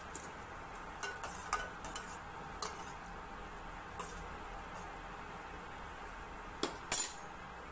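A metal spoon clinking against a pan of milk heating on the stove: scattered light clicks, with two louder clinks near the end, over a steady faint hiss.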